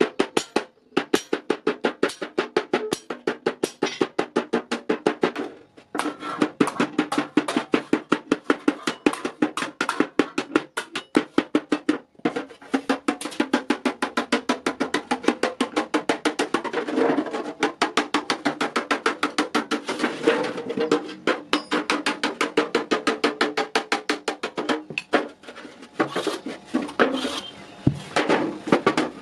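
Rapid, even knocking strikes, several a second, pausing briefly a few times.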